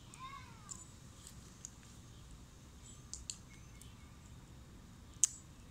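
Faint outdoor background with a few short, sharp clicks from a small plastic slime package being handled and picked open, the loudest near the end. A faint chirp sounds near the start.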